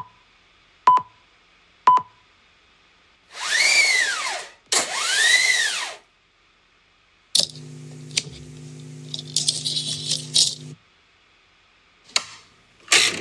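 Sound effects for an animated logo intro: three short beeps about a second apart, then two whooshes, each with a tone that rises and falls. A steady mechanical hum with rattling follows, and two sharp hits come near the end.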